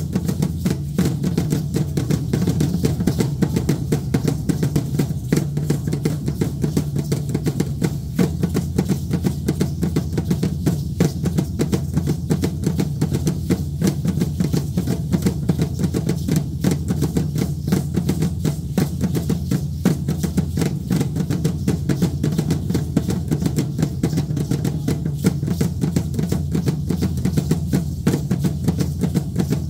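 Aztec dance drumming: a large drum beaten in a fast, steady rhythm without let-up, with the shaking of the dancers' seed-pod ankle rattles.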